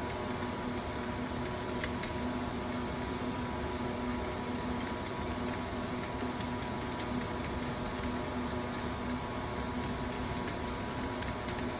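Steady mechanical hum with an even hiss, unchanging throughout, with a few faint clicks.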